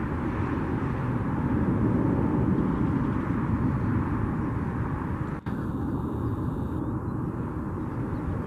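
Airliner engine noise at an airport: a steady rumble and rush. About five and a half seconds in it drops out for an instant, and afterwards the sound is duller.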